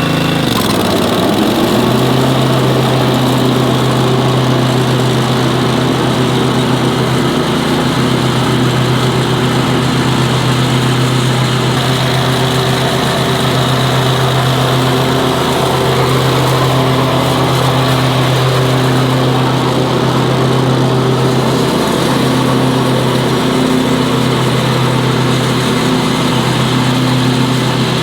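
A 48-inch walk-behind lawn mower's engine runs steadily. About a second in, its pitch sags briefly and then comes back up to a constant note.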